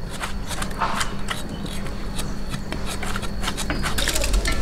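Hands rubbing and squeezing chopped bamboo shoot in a steel bowl of water, washing out its bitter sap: water sloshing with many small splashes and clicks of the pieces, busier near the end.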